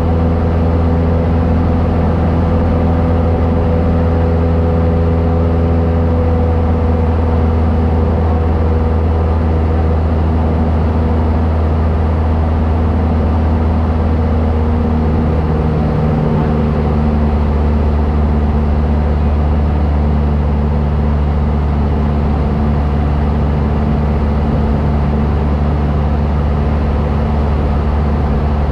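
Cessna light airplane's engine and propeller droning steadily, heard inside the cabin. The pitch drops slightly a little over halfway through.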